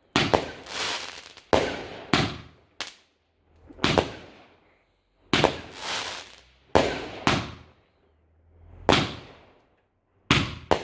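Fireworks going off: a string of about ten sharp bangs at irregular intervals, each trailing off in a fading echo.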